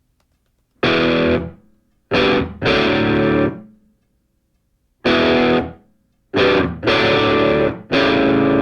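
Background music: distorted electric guitar chords struck in short stabs, each ringing up to about a second and cut off, with silent gaps between them.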